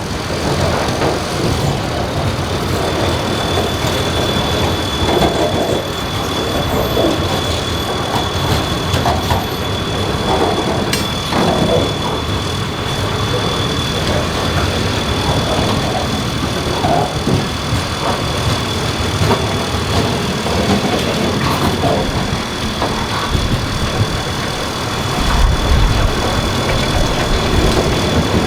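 Diesel-led freight train running, its engine and rolling wheels making a steady rumble with uneven swells and a faint steady high whine.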